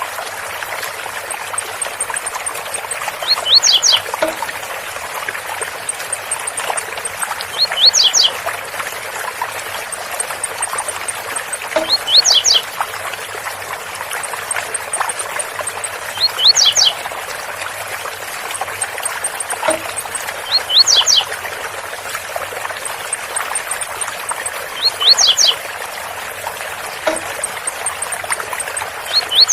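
Blue-black grassquit (tiziu) singing its short 'Zel Zel' phrase again and again, about once every four seconds, over the steady rush of a waterfall.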